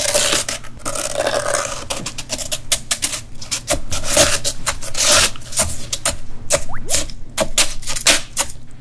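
Chopsticks scraping and scratching the frozen surface of an ice tray, shaving it into crushed ice, in a fast run of short scrapes.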